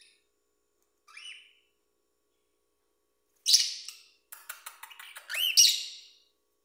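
Cockatiel calling: a faint short chirp about a second in, then a loud harsh screech, a quick run of clicking chatter, and a second loud screech with rising and falling whistled notes.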